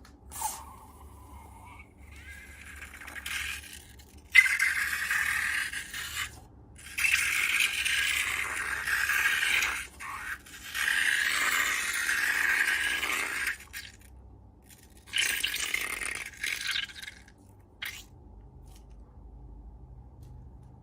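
Slime and long balloons being handled: four noisy bursts of two to three seconds each, separated by short pauses, with a brief sharp click near the end.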